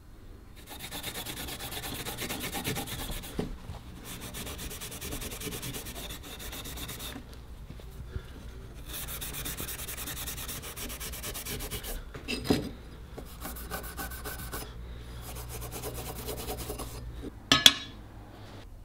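A steel Stanley plane iron rubbed by hand on abrasive, a dry scratchy rasp in several spells of quick back-and-forth strokes with short pauses between. Two sharp metal knocks break in, one about twelve seconds in and a louder one near the end.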